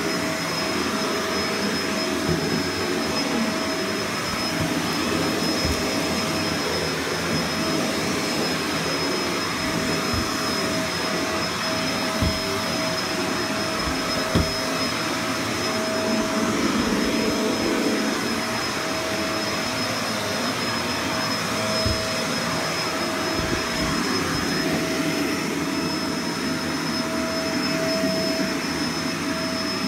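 Vacuum cleaner running steadily while carpet is vacuumed, its motor giving a constant whine over the rush of air, with a few brief knocks as it is pushed about.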